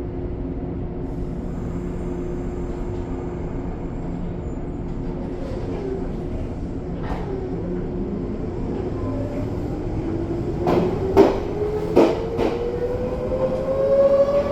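Izu Kyuko 2100 series electric train's Toyo-made traction motors heard from on board: a steady hum, then from about eight seconds a whine rising steadily in pitch as the train accelerates. Near the end the wheels knock over rail joints several times.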